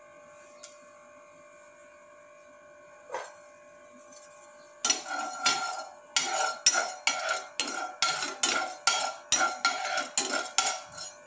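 After a few quiet seconds, a metal spoon scrapes and stirs fenugreek seeds in oil around a nonstick frying pan, in quick repeated strokes about two a second, as the seeds are roasted until golden.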